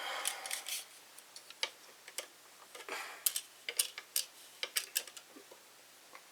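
Light, irregular clicks and taps of a caliper being slid and handled against small electrolytic capacitors while they are measured.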